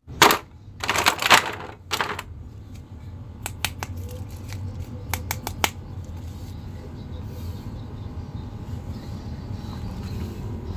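Hard plastic toy figures and a clear plastic blister tray being handled: a few loud clicks and crackles in the first two seconds, then scattered light clicks over a low steady hum.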